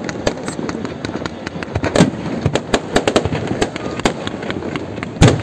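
Aerial fireworks shells launching and bursting close overhead: a rapid, irregular string of bangs and crackling, with a loud bang about two seconds in and another near the end.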